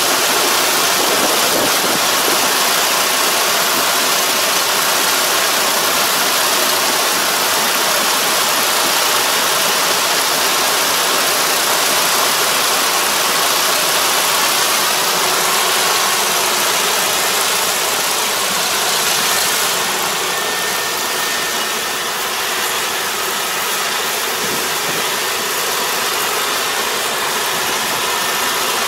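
Kubota combine harvester running steadily as it cuts rice, heard from across the field under a steady rushing hiss.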